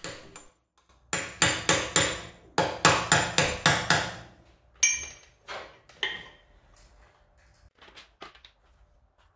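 Hammer striking a cold chisel to bend a tab of the front sprocket retaining washer flat over the sprocket nut: two quick runs of sharp taps, about a dozen in all, then two single ringing strikes and a few faint clicks near the end.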